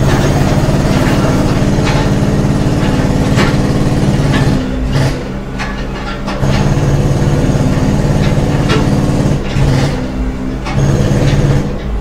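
Construction-site machinery: a large engine running steadily, easing off twice (in the middle and again near the end), with scattered knocks.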